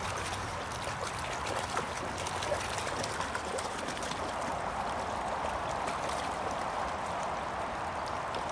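Flowing river water running with a steady rush, with a few faint clicks.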